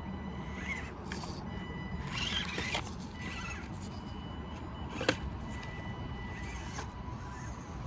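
Element Enduro24 micro RC crawler's small electric motor and drivetrain whining steadily as it crawls over rocks, with short scrapes of tyres and chassis on stone and a sharp knock about five seconds in.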